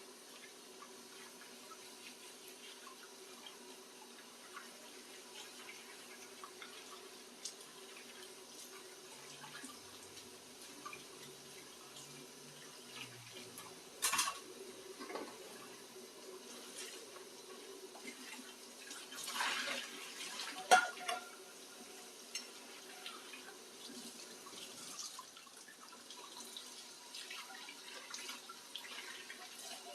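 Kitchen tap running into a sink while dishes are washed, with a few sharp knocks and clinks of dishes, the loudest about two-thirds of the way through.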